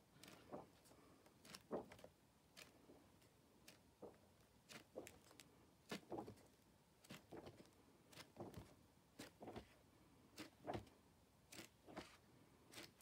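Faint pages of a large hardback book being turned one after another: short paper flicks and rustles every second or so.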